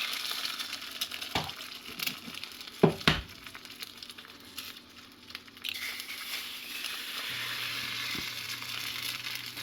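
Eggs frying in a hot cast iron skillet (a Lodge 8SK), sizzling steadily. A few sharp knocks come in the first three seconds, and the sizzle grows louder about six seconds in.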